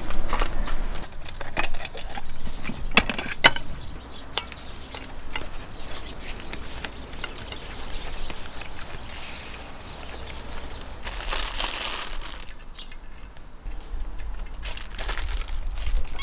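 Handling of camp cooking gear on a slatted camp table: a run of clicks and knocks in the first few seconds, rustling of a padded canister cover, and a short hissing, crackling burst about eleven seconds in.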